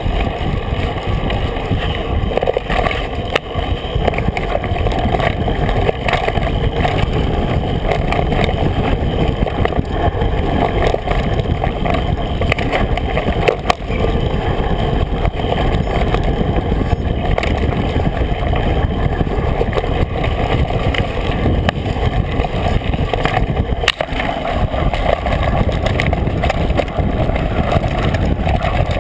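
Mountain bike ridden fast down a dirt singletrack, heard from a camera mounted on the bike: a steady loud rumble of tyres and frame on rough ground, mixed with wind on the microphone, and sharp knocks over bumps here and there.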